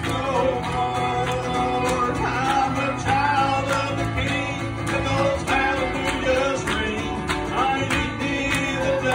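A man singing a country-style song while strumming an acoustic guitar in a steady rhythm, heard live through a small PA.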